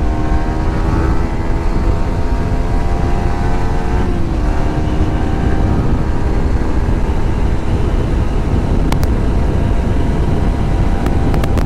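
Wind rushing over a cotton-wrapped microphone inside a motorcycle helmet at highway speed, a steady low rumble, over the hum of a Yamaha R15 V3's single-cylinder engine. The engine note sags slowly, dips briefly about four seconds in, then holds steady; a few light clicks come near the end.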